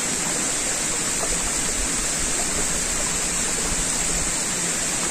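Stream babbling over rocks: a steady, even rush of flowing water.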